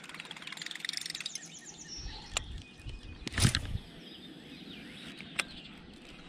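Birds chirping in quick runs of notes, busiest in the first second and a half. About halfway through comes one short, loud rush with a low thump, plus a couple of sharp clicks.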